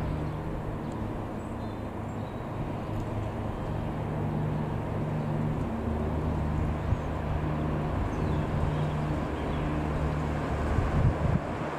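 Piper PA-28-180 Cherokee's four-cylinder Lycoming piston engine and propeller droning steadily as the light aircraft flies past low. A few low bumps near the end, like wind hitting the microphone.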